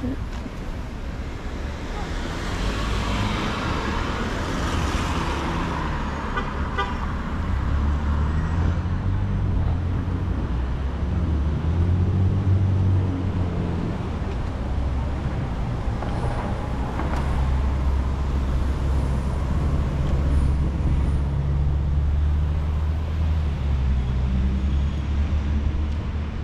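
Road traffic: a steady low engine rumble with vehicles passing, one going by a few seconds in.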